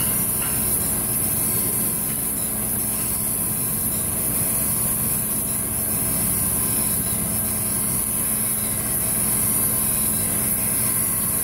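Cam grinding machine grinding the lobes of a 5.9 Cummins camshaft under a stream of cutting oil: a steady machine hum with a constant high hiss.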